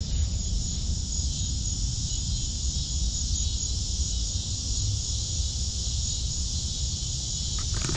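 A steady evening chorus of insects, an unbroken high-pitched shrilling, over a low rumble on the microphone.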